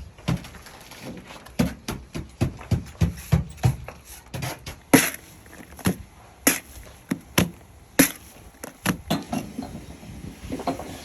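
Bricklaying hand tools on brick and mortar: a steady run of dull knocks and taps, with a few sharper clacks about five, six and a half and eight seconds in.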